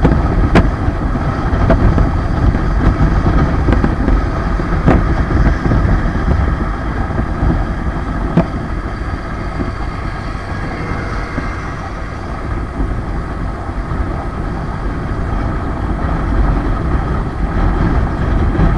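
Motorcycle riding at highway speed, heard from the rider's own bike: the engine runs steadily under a heavy low rumble of wind and road noise, with a few brief knocks. The level eases slightly midway and builds again near the end.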